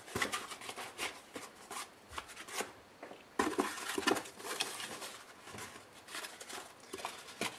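Foam packing pieces being pulled out of a cardboard box and set down: irregular rubbing, scraping and rustling of foam against cardboard, loudest around three and a half to four seconds in.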